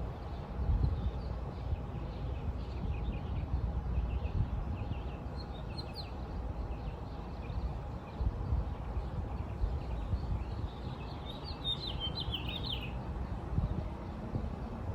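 Small birds chirping and tweeting, with a louder run of quick chirps a little past the middle, over a steady low rumble.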